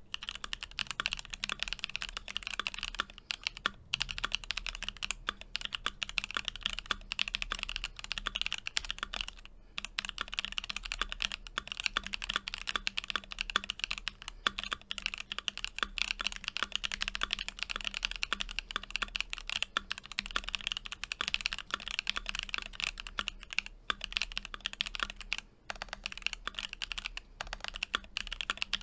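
Steady fast typing on an ROG Azoth mechanical keyboard with lubed Gateron Luciola switches and Staebies stabilizers: rapid, dense key clacks with a couple of brief pauses.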